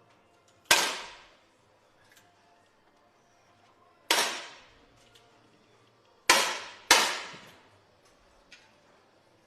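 Four 10 m air rifle shots, each a sharp crack with a short echo that fades out: one about a second in, one near the middle, then two close together about half a second apart.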